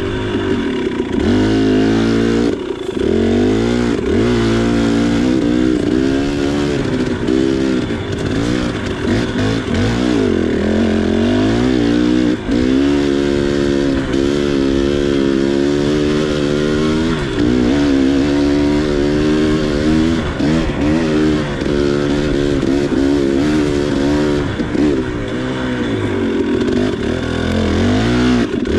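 KTM 300 XC two-stroke single-cylinder dirt bike engine revving up and dropping back over and over as the throttle is opened and closed while riding.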